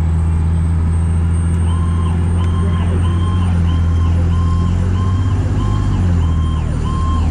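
Fire truck on an emergency run with its sirens going: a high steady siren whine, joined about two seconds in by an electronic siren cycling up and down just under twice a second, over the steady low drone of the truck's engine and road noise.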